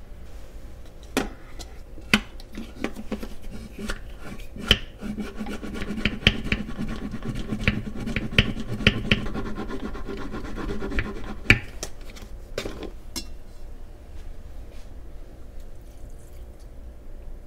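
French press plunger pumped up and down through warm milk to froth it into milk foam: quick repeated swishing, rubbing strokes with sharp clicks of the plunger against the glass and lid. The pumping stops about 13 seconds in.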